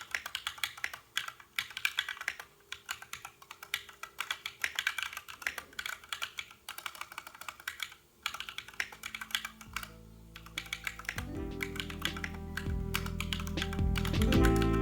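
Typing on a custom 60% mechanical keyboard with lubed Glorious Panda tactile switches, a brass plate, an aluminium case and PBT keycaps: a quick, irregular patter of key strokes. Background music fades in about ten seconds in and takes over as the typing stops.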